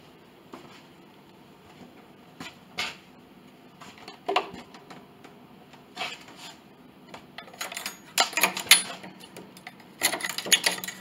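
A steel blade scraping and prying in the cracked glue joint between a piano's soundboard and its wooden blocks, working at old hide glue: a few separate clicks and scrapes at first, then runs of quick scraping in the second half.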